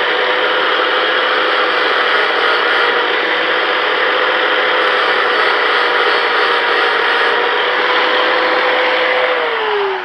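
Harbor Freight angle grinder with an abrasive disc running steadily against the lip of an aluminum wheel rim, sanding out gouges. Near the end it is switched off and its whine falls as the motor spins down.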